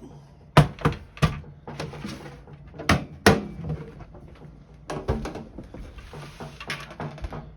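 Sharp knocks and clunks of a Smith-Corona Galaxie 10 Deluxe portable typewriter being pulled out of its carrying case and set down, with some scraping between the knocks.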